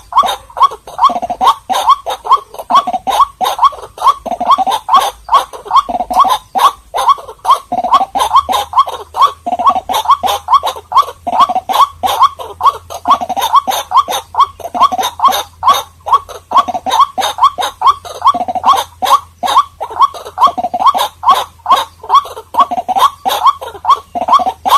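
White-breasted waterhen calling loudly in a rapid unbroken series of short, repeated croaking notes, about three to four a second, each note rising in pitch.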